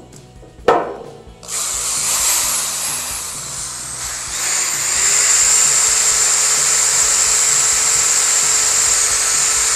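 Corded electric drill running at speed, spinning a salvaged angle grinder's gear head through its armature shaft: a steady whine with a high ringing tone, louder from about halfway. A sharp knock comes just before it starts.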